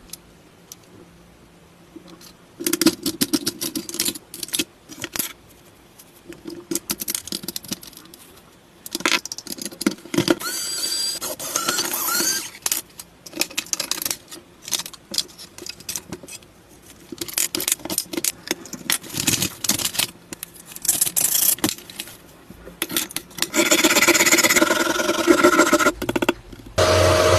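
Irregular bursts of clicks, rattles and scrapes from small plastic and metal parts of a toy car being handled during a repair, with a denser, steadier stretch of rattling noise near the end.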